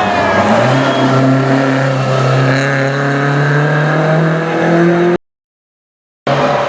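Rally car engine pulling hard under acceleration: its pitch drops at a gear change near the start, then climbs steadily for several seconds. The sound cuts out completely for about a second near the end, then engine noise returns.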